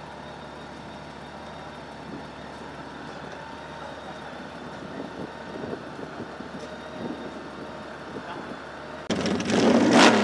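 A vehicle engine idling steadily. About nine seconds in, a much louder rushing noise lasts about a second.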